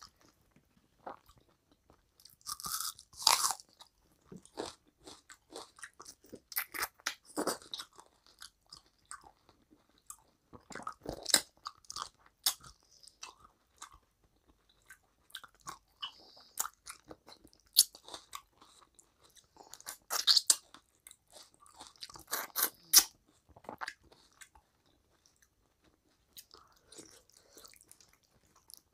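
Close-up chewing and wet mouth sounds of a person eating rice and mutton curry with her hand: irregular smacks, crunches and clicks, with squelches of fingers mixing rice and curry on the plate.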